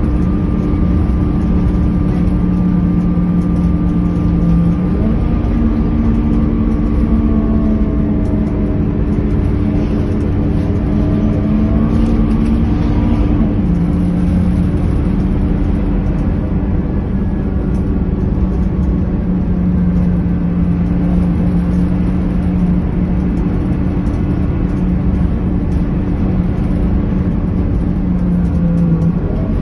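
Scania K230UB city bus's rear-mounted five-cylinder diesel running under way, heard inside the passenger cabin along with road and tyre noise. The steady engine note steps up about five seconds in and drops back around the halfway point.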